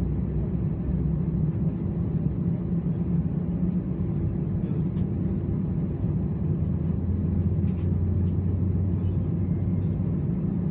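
Steady low hum inside the cabin of an Airbus A320 standing at the gate, with a deeper tone coming in for a few seconds past the middle.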